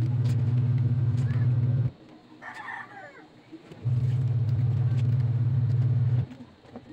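A low, steady machine hum that runs for about two seconds, cuts off, and starts again a couple of seconds later. In the pause a rooster crows briefly.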